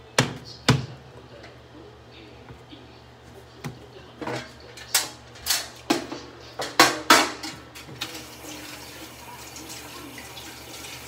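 A cutting board set down on the induction hob with two sharp knocks, then a run of loud clatters about half a second apart like dishes or utensils in a sink. From about eight seconds in, the steady hiss of a running water tap.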